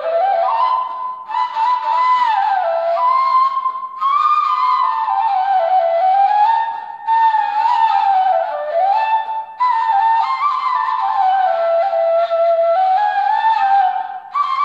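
Turkish ney (end-blown reed flute) playing a breathy solo melody in makam Muhayyerkürdi, part of a saz semai, sliding between notes. The phrases are broken by short pauses for breath about every three seconds.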